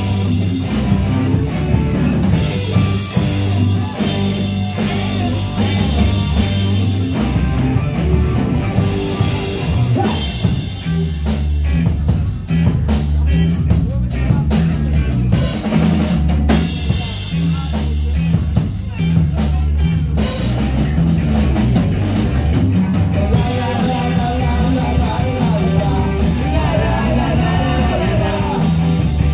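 Live band playing loudly: drum kit, bass and electric guitar driving a steady beat, with a singer's voice over it at times.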